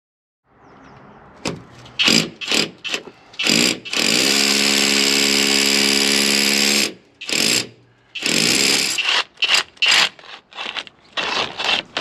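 Rotary hammer drill with a long masonry bit boring a pilot hole through a brick wall. It starts about a second in and runs in short trigger bursts, with one steady run of about three seconds in the middle.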